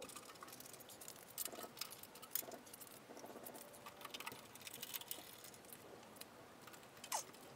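Faint small metallic clicks and rattles of a hand driver, bolts and washers as stainless button-head bolts are driven into an aluminium under tray overhead, with a few short bursts of rapid ticking.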